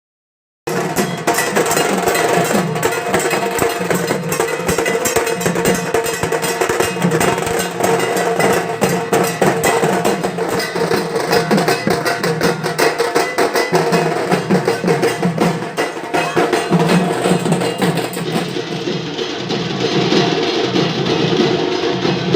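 Dhak drums beaten rapidly with sticks in a dense, continuous rhythm, starting abruptly about half a second in.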